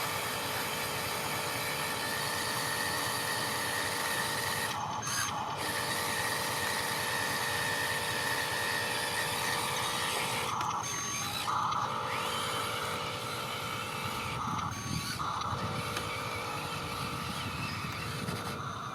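Electric motors and plastic gearboxes of RC construction models running with a steady whine. The whine stops briefly about four times and comes back lower in pitch after a pause about ten seconds in, as the machines stop and start.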